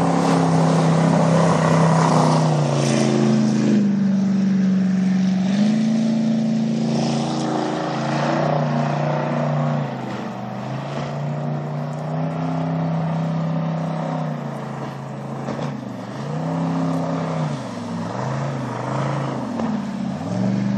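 Jet boat's 455 big-block V8 running under way, its pitch mostly steady and shifting a few times as the throttle changes, then rising and dipping repeatedly near the end.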